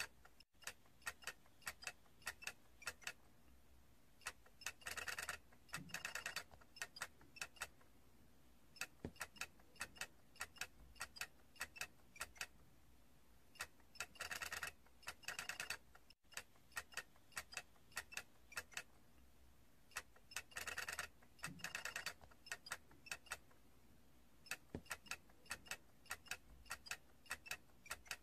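Small plastic toy clicking: scattered single light clicks with several short runs of rapid clicking, each about half a second long.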